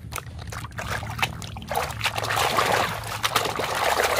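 Water splashing and sloshing in a tub as a plastic toy train is dunked and swished by hand in muddy water. A few separate splashes and drips at first, then vigorous, continuous splashing from about two seconds in.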